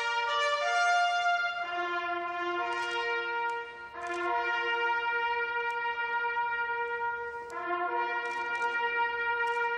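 Brass ensemble playing slow, held chords that change every couple of seconds.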